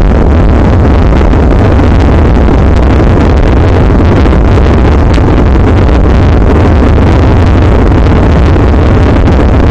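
Ripstick caster board's wheels rolling over asphalt, carried through the deck to the camera mounted on it: a loud, steady low rumble.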